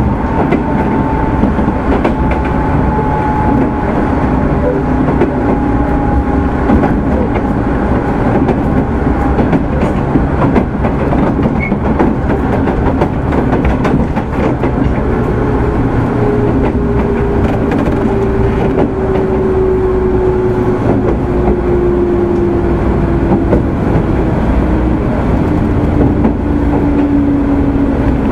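Running sound of the JR 205 series 600 subseries electric motor car MoHa 204-602, whose traction motors have external cooling fans: a steady rumble of wheels and running gear on the track. Over it, a high motor whine sinks slowly in pitch in the first few seconds. From about halfway a lower whine falls steadily as the train slows.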